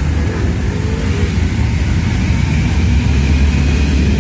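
Large diesel truck engine running close by: a steady, low rumble that builds slightly toward the end.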